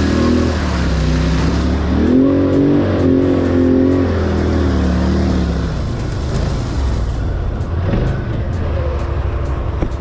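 ATV engine running under throttle while riding, its pitch rising and falling as it revs during the first half, then running more steadily.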